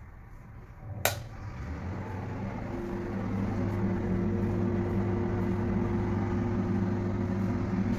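A sharp click about a second in, followed by a steady low machine hum that builds up over the next two seconds and then holds.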